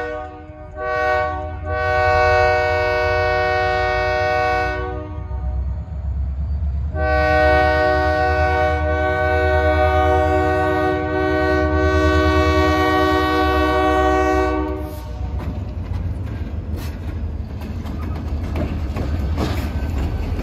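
Diesel locomotive horn sounding for a grade crossing, several notes at once: a short blast about a second in, a long blast, then after a pause a longer blast of about eight seconds. Underneath, the EMD SD40-2 locomotive's diesel engine rumbles steadily, and after the horn stops its wheels click and rumble over the rails as it passes close by.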